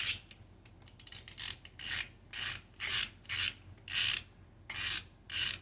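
Hand ratchet wrench clicking in repeated back-and-forth strokes, about two a second, backing out a bolt that is already loose.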